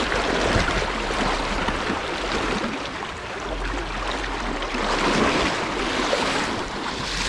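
Swift river current rushing and splashing around a wader's legs, with splashing where a hooked sockeye salmon fights at the surface, a little louder about five seconds in.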